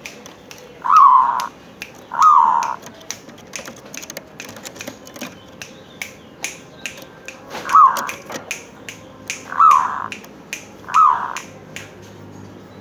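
Local zebra dove (perkutut) cooing: five short, falling notes, two close together near the start and three more later, over a scatter of sharp clicks.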